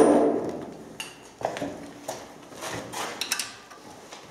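Steel sockets and a wrench clinking and rattling in a socket-set case as one is picked out and fitted: a loud metal clank at the very start, then lighter, irregular clinks and clatter.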